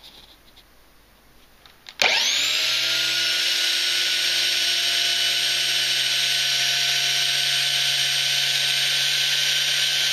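Electric belt sander switched on about two seconds in: the motor spins up quickly and settles into a steady high whine, running freely without load. Before it starts there are only a few faint light taps.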